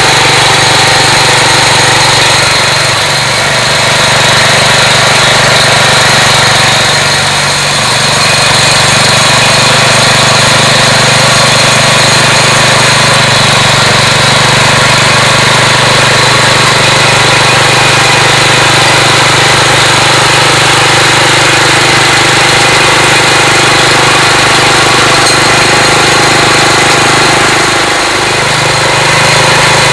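Engine of a Mobile Drill Minuteman portable auger rig running steadily while the auger turns into the ground, its note sagging briefly three times, about four, eight and twenty-eight seconds in.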